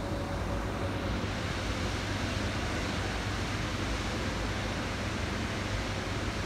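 Airliner cabin noise as the aircraft moves slowly on the ground: a steady, even rush with a low hum underneath.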